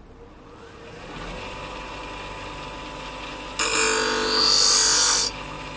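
Twice as Sharp bench grinder spinning up to a steady hum. About three and a half seconds in, a kitchen scissor blade clamped in the grinder's jig meets the spinning wheel for under two seconds: a loud, ringing grind of a test pass.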